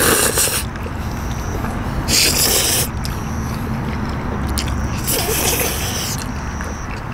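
People slurping thin noodles, three long loud slurps about two and a half seconds apart, with quieter chewing in between.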